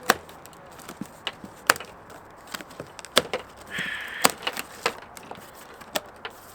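Cardboard shipping box being handled to open it: a string of sharp knocks and taps, with a short scraping sound about four seconds in.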